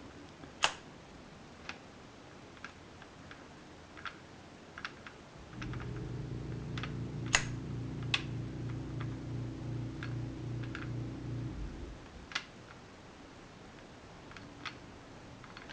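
Scattered light clicks and taps. A low, steady machine hum with a slight pulse comes in about five and a half seconds in and stops about six seconds later.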